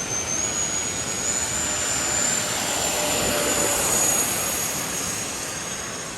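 Aircraft flying past: a steady high whine over a broad rushing noise, growing louder to a peak about four seconds in and then easing off.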